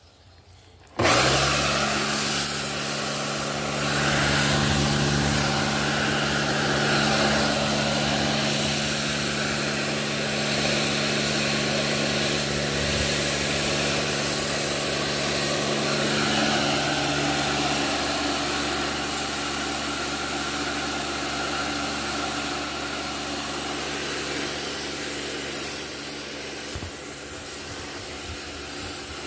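Kärcher K2 electric pressure washer starting up about a second in and running steadily: a motor hum under the hiss of the water spray. The hum's tone shifts a little around two-thirds of the way through, with a few brief dips near the end.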